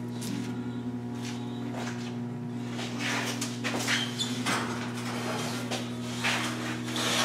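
Steel square tubing being handled and slid into position in a dump-body frame: scattered light scrapes and knocks of metal on metal, over a steady low hum.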